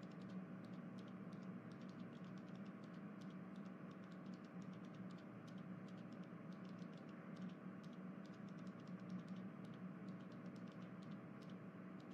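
Faint room tone: a low steady hum with many soft, irregular clicks.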